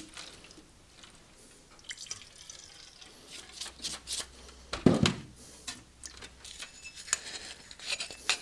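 Cleaning solvent poured from a metal can into a foil tray of chuck parts, then dripping and splashing as the steel chuck body and sleeve are worked in it, with small clicks of metal on metal and the foil tray and a thump about five seconds in.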